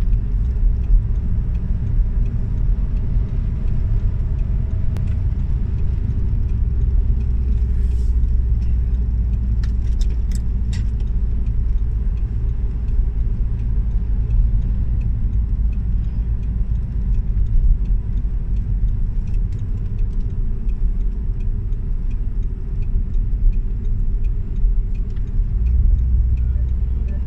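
Steady low road rumble of a car's engine and tyres at motorway speed, heard from inside the cabin, with a few light clicks about eight and ten seconds in.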